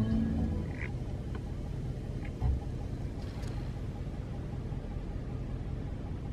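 Low, steady rumble of a vehicle running, heard from inside the cab with the window open, with a dull thump about two and a half seconds in.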